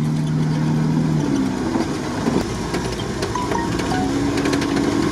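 UAZ off-roader's engine running as the open-top vehicle drives over a bumpy dirt track, heard from the cabin with steady road and wind noise. The engine note is low at first and higher from about four seconds in, with small rattles from the body.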